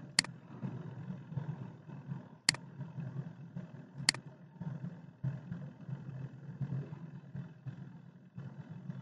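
Three sharp computer mouse clicks in the first half, over a steady low rumble in the background.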